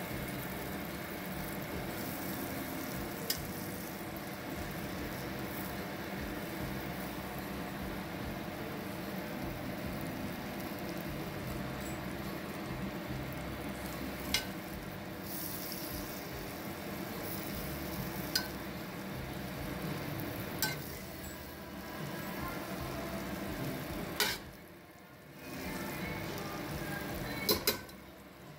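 Butter sizzling and bubbling as it melts in a stainless steel pot, stirred with a metal utensil that clinks sharply against the pot a few times. The butter is being melted to brown rice in.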